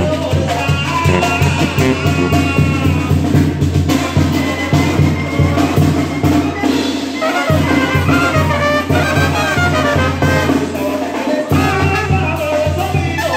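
Live Mexican brass band (banda) playing a dance tune: trumpets and trombones carry the melody over deep bass notes and a steady drum beat.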